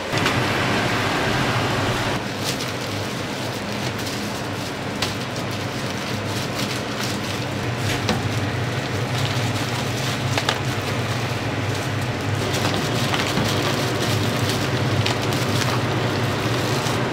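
Hotteok frying in oil on a flat griddle: a steady sizzle with scattered sharp clicks and taps, over a low steady hum.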